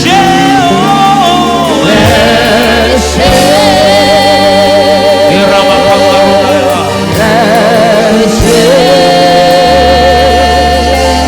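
Gospel choir singing long held notes with vibrato over a live band with steady bass.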